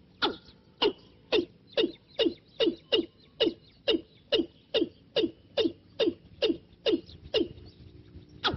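Watercock calling: a steady run of short notes, each dropping sharply in pitch, a little over two a second, with a pause near the end before one last note.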